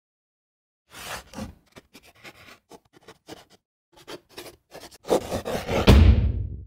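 Chalk scratching on a chalkboard in quick short strokes, as if writing: sparse at first, then denser and louder about five seconds in, ending with a low thump.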